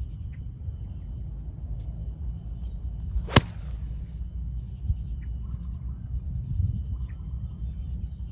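An 8-iron striking a golf ball in a full swing, one sharp crisp click about three and a half seconds in, over a steady low rumble.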